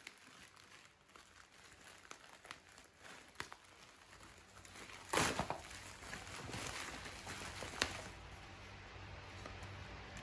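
Plastic poly mailer bag crinkling and rustling as it is pulled and torn open by hand, with a louder burst of crinkling a little past halfway through and a sharp crackle near the end.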